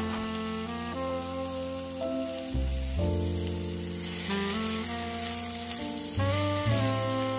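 Sliced red onions sizzling in olive oil in a nonstick frying pan, the hiss growing louder about halfway through as they are stirred with a wooden spatula. Background music with a saxophone-like melody plays over it.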